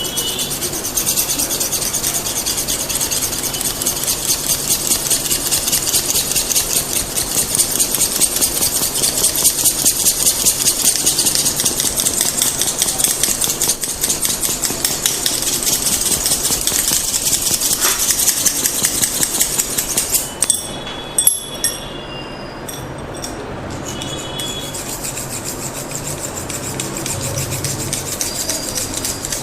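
Massage strokes: a fast, dense, rhythmic rubbing on skin and hair. About two-thirds of the way through there are a few sharp clicks, and then the strokes go on softer and quieter.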